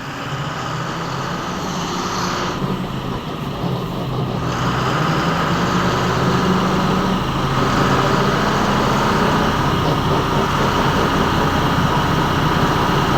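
A vehicle engine running steadily, growing louder over the first several seconds and then holding. The vehicle is being checked by a mechanic for an unexplained noise.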